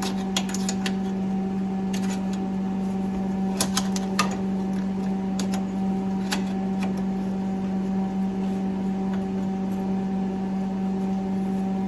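Stick welder idling with a steady electrical hum, switched on but not yet welding. Scattered light metallic clicks and taps sit on top, clustered around four seconds in, as tools and metal parts are handled.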